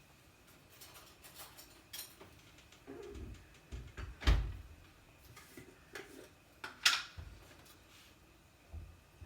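Scattered knocks and clicks of things being handled in a kitchen, with two louder thumps about four and seven seconds in.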